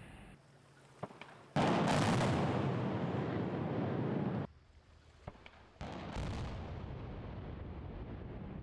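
Explosive demolition charges going off on an old steel truss bridge span. A sharp crack comes about a second in, then a loud blast whose noise carries on for about three seconds and stops abruptly. After a couple of further sharp cracks, a second, quieter blast starts about six seconds in and slowly dies away.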